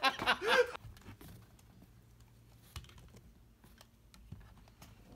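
A few faint, scattered taps and clicks of hands handling a mini tatami and its cloth border on a tabletop.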